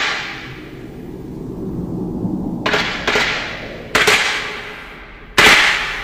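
Sound effects of a special-effects hero battle: a series of sharp, hissing hits, each fading out over about half a second, over a low rumble. One lands at the very start, a quick pair comes about three seconds in, another a second later, and the loudest near the end.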